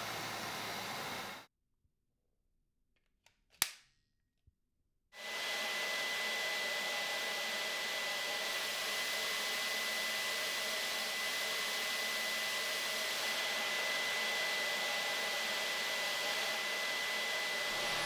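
Dyson V15 Detect cordless vacuum running with a steady rush of air, cutting out about a second and a half in; a sharp click sounds in the gap, and about five seconds in the vacuum starts up again and runs steadily with a high, steady motor whine.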